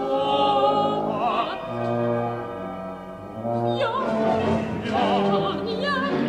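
Modern orchestral music: the orchestra holds sustained chords while a soprano sings with wide vibrato, and two low held notes sound near the middle.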